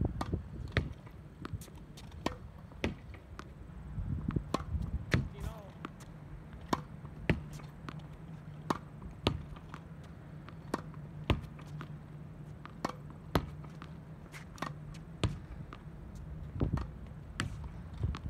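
Tennis ball rallied against a practice backboard on a hard court: a steady run of sharp pops from the racket striking the ball, the ball hitting the wall and bouncing on the court, one every half second to three quarters of a second.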